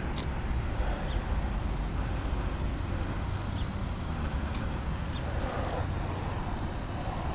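A few faint, sharp metallic clicks as forceps work a popper's treble hooks out of a bass's mouth, with some soft handling rustle, over a steady low rumble.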